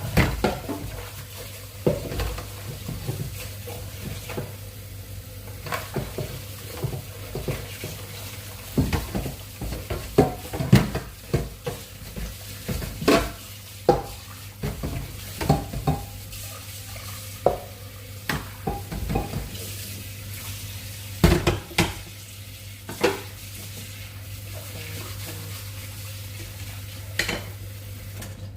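A metal spoon or other utensil stirring and scraping in a cooking pot, with irregular clinks and knocks against the pot. Under it runs a steady low hum.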